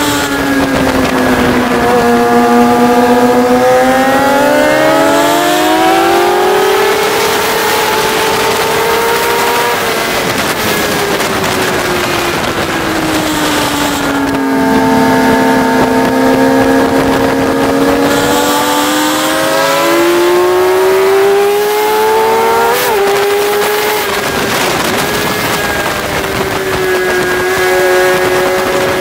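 Sport motorcycle engine at track speed, its revs climbing steadily for several seconds, falling back, then climbing again before dropping off, with heavy wind noise rushing over the bike-mounted microphone.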